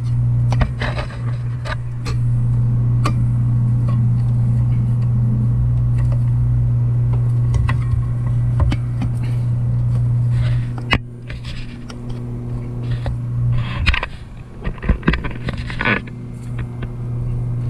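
A steady low electrical hum, with scattered clicks, taps and scrapes of handling on top; the hum drops away for a couple of seconds about fourteen seconds in, then comes back.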